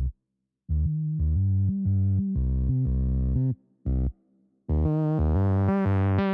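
Background music: a melody of held, pitched notes broken by a few short silences.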